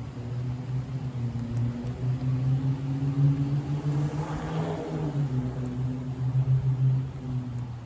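A car being driven, its engine and road noise making a steady hum, with a whoosh that swells and fades about halfway through.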